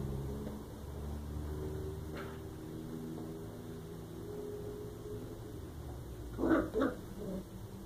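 Cocker spaniel puppy barking: two short, high barks in quick succession near the end, with a fainter one earlier, over a steady low hum.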